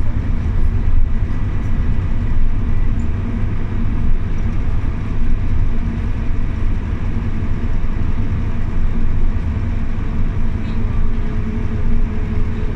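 Scania OmniLink city bus heard from inside the cabin: its engine runs with a steady low drone under road noise.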